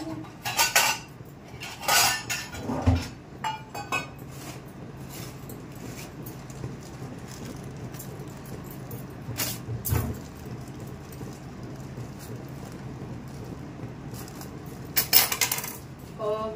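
Kitchen utensils and steel dishes clinking and knocking against each other in scattered strikes, with a busier run of clatter shortly before the end, over a faint steady low hum.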